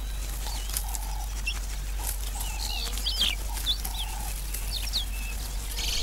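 Birds calling: short, high, whistled chirps scattered throughout, over soft low clucking calls repeated roughly once a second, with a steady low hum underneath.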